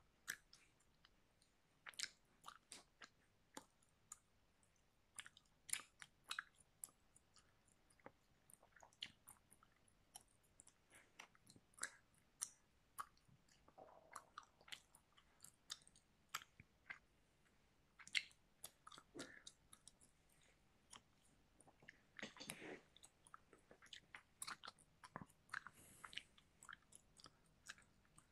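Faint, irregular small clicks and light rustles scattered throughout, with a longer rustling stretch about two-thirds of the way in.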